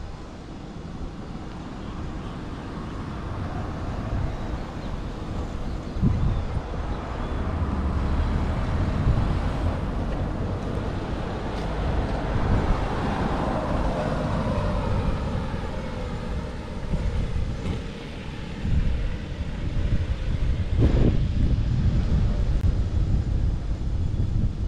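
Airplane engines passing overhead, building up and then fading, with a falling whine about halfway through, over a steady low rumble.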